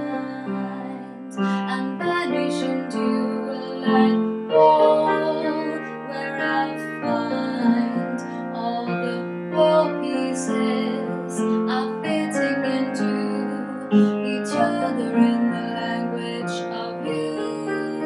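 A woman singing while accompanying herself on an acoustic piano, with chords that change every second or two under the sung melody.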